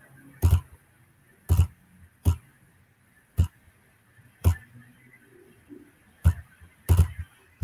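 Computer mouse clicks picked up by a close microphone: about seven sharp, irregularly spaced clicks with a dull thud to each.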